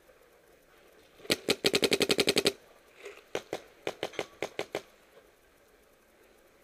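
Planet Eclipse Geo2 electronic paintball marker firing. First comes a rapid string of about a dozen loud pops at about ten a second, then after a short pause a second, quieter string of about eight shots at a slower, uneven pace.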